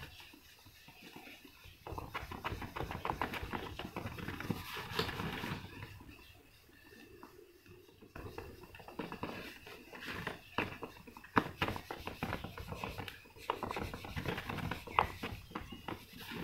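A cloth rubbing briskly over the glossy clear-coated plastic body shell of a model car in the final polishing step: a scratchy rubbing with many small clicks and squeaks. It eases off for a couple of seconds about six seconds in, then picks up again, with a few sharper clicks.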